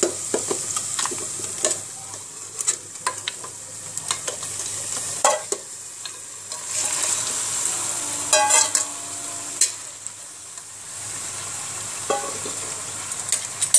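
Mutton head pieces sizzling in oil and onion-tomato masala in a pressure cooker, stirred with a spatula that knocks and scrapes against the pot.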